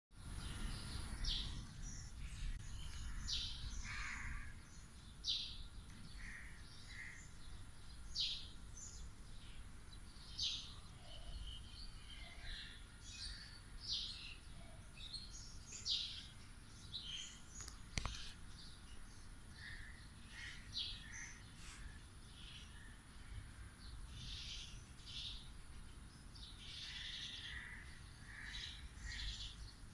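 Outdoor ambience: birds chirping and calling in short, repeated calls over a low rumble of background noise, with a single sharp click a little past halfway.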